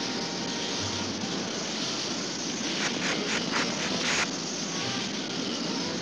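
Cartoon sound effect of a jet aircraft's engine running: a steady rushing noise, with a few short crackling bursts about three to four seconds in.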